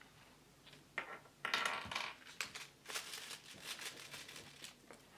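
Hands handling a clear plastic wrapper: a sharp click about a second in, then irregular crinkling and crackling of the plastic.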